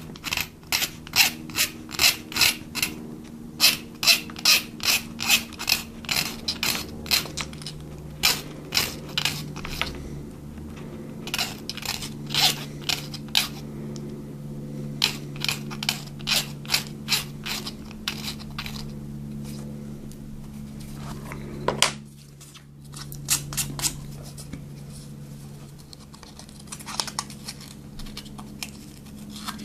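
Half-round hand file rasping in quick, regular strokes, about two to three a second, in runs that stop and start again, cleaning up a cut opening in a small camera's housing. A steady low hum runs underneath.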